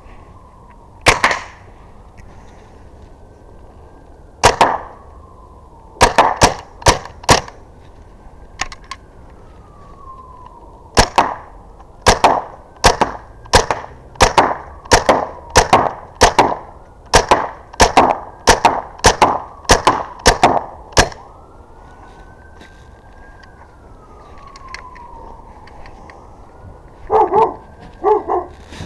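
Byrna Mission 4 CO2-powered .68 calibre launcher firing about two dozen shots, each a sharp pop: a few spaced shots at first, then a rapid string of about two a second. A faint rising-and-falling wail like a distant siren sounds behind them, and a dog barks a few times near the end.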